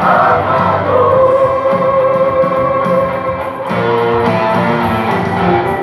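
Mixed choir of men and women singing in harmony with instrumental accompaniment: a long held chord for the first half, then shorter, moving notes.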